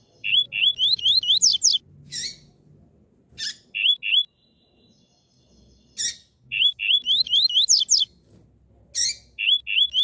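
Female double-collared seedeater (coleiro) calling: twice, a run of short rising chirps that speeds up and climbs in pitch, each followed by a shorter group of three chirps. Sharp clicks fall between the runs.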